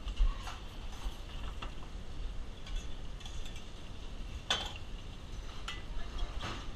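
Kitchen work noise: scattered short clinks and knocks of cookware and utensils being handled, the loudest about four and a half seconds in, over a low steady rumble.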